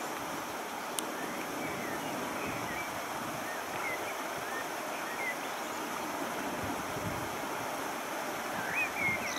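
Distant Airbus A330 jet engines at low power as the airliner rolls along the runway, a steady rush mixed with wind on the microphone. A few faint high chirps and a single sharp click about a second in.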